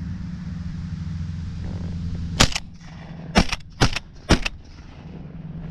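Shotgun firing four sharp shots in quick succession, about half a second to a second apart, the first with a quick double crack. Low wind rumble on the microphone runs under them.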